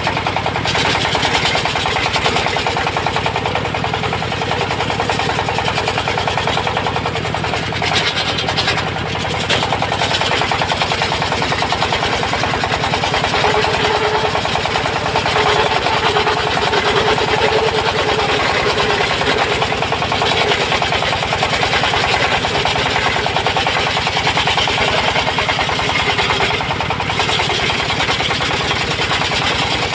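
An engine-driven circular-saw sawmill running steadily as its blade rips a teak beam lengthwise, with a faint tone from the blade for a few seconds in the middle.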